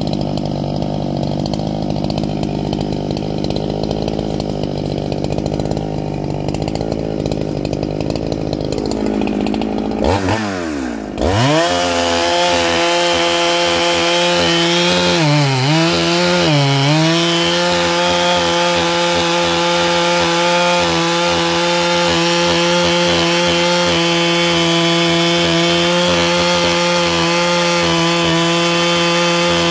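Neo-Tec clone 395 two-stroke chainsaw running. About ten seconds in, the engine note dips sharply, then climbs to high revs and holds steady there, sagging briefly twice a few seconds later.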